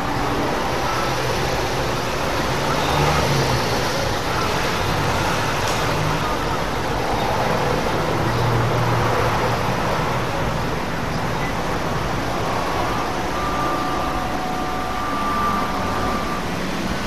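Steady traffic noise, with low rumbles of passing vehicles swelling a few times.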